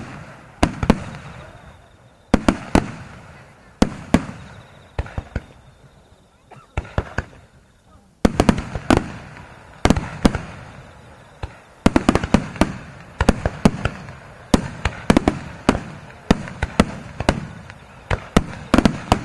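Aerial fireworks shells bursting with sharp booms and crackles. They are spaced out at first, then about eight seconds in they turn into a dense, rapid-fire barrage of overlapping bursts.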